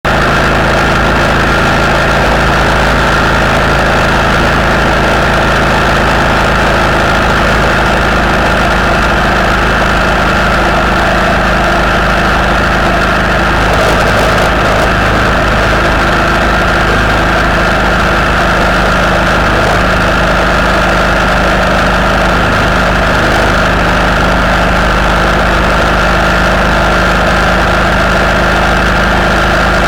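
Vehicle engine running steadily at motorway cruising speed, with a constant drone of road and wind noise.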